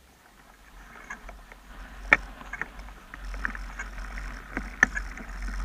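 Mountain bike rolling over a dirt trail: tyre noise with rattles and clicks from the bike, and two sharp knocks about two seconds and five seconds in as it goes over bumps. A low wind rumble on the microphone grows louder as the bike picks up speed.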